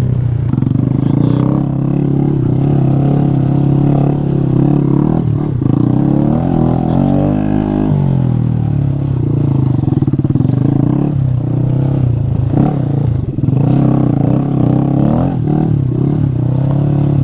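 Honda Grom's 125 cc single-cylinder four-stroke engine running under load as the small motorcycle is ridden off-road through loose sand, its pitch rising and falling with the throttle.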